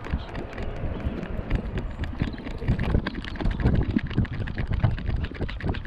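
Footsteps on a paved path, many irregular knocks, over a low rumble of wind on the microphone.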